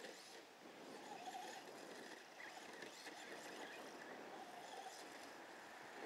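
Faint whine of a small electric RC truck's motor, coming and going in short swells over a steady hiss.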